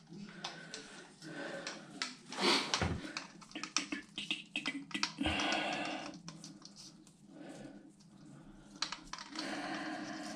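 Close-up handling of hand tools and pipe fittings: a run of small clicks and knocks, with short scraping or rubbing passes about two and a half seconds in, about five seconds in and near the end.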